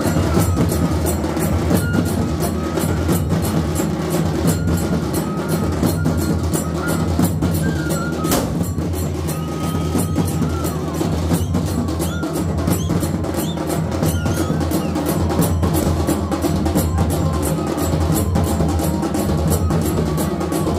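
Loud, fast drumming with dense strokes and rolls, and a high pitched melody line that weaves over it throughout.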